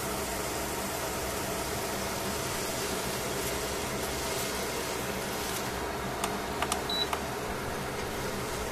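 Steady hiss of shimeji mushrooms frying in a stainless pan. Near the end come a few sharp clicks of tongs against the pan as the mushrooms are turned.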